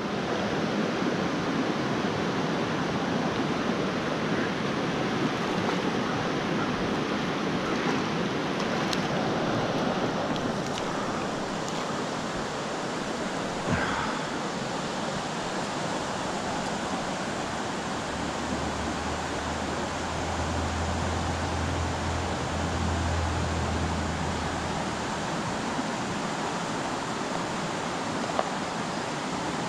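Rushing water of a mountain trout stream, a steady even rush with no breaks.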